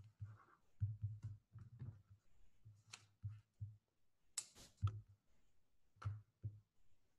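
Faint, irregular clicks and soft low thumps, with a few sharper clicks about three, four and a half and six seconds in.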